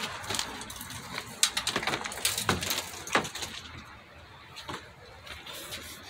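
Scattered light knocks, clicks and scrapes of plastic trim being handled under the hood, quieter for a second or so near the end.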